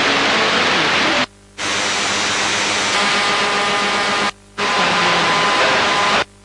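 Radio static: a loud, even hiss of interference noise that cuts out abruptly for a moment three times, with faint steady whistling tones coming through in the second half.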